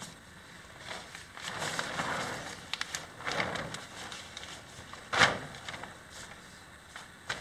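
A black plastic sheet being peeled off a gravel-filled form and shaken: rustling swishes with a few small clicks, then one sharp flap of the sheet about five seconds in.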